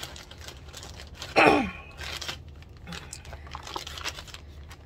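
Packaging and small items being handled: rustling, crinkling and light clicks, with one short, loud sound about a second and a half in that slides down in pitch.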